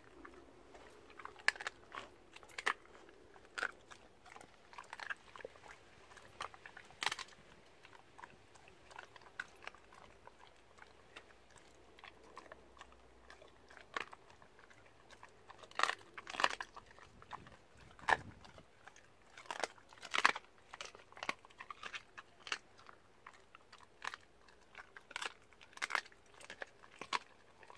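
A spaniel crunching through a raw chicken foot, its teeth cracking the small bones in irregular sharp crunches between wetter chewing. The crunches come thicker and louder in the second half.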